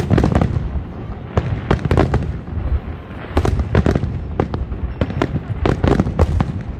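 Fireworks display going off: a steady run of sharp bangs and cracks over a continuous low rumble. The bangs come in rapid clusters about halfway through and near the end.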